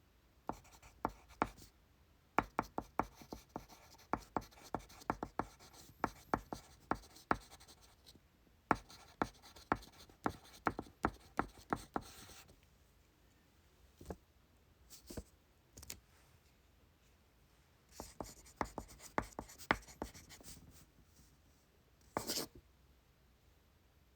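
Pencil writing on paper: quick runs of sharp little taps and strokes in bursts, with pauses between them. Near the end there is one short, broader noise.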